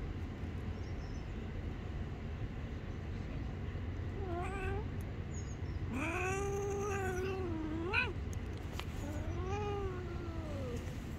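Stray cat yowling three times as it is touched: a short call, then a long drawn-out one that ends in a sharp rise, then a third that falls away. An angry warning from a cat that does not want to be handled.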